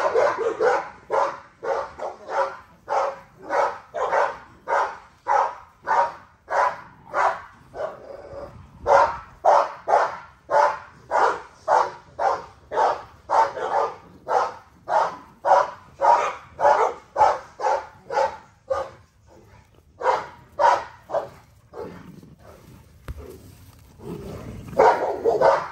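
A dog barking over and over, about two barks a second, with short breaks about a third of the way in and again near the end.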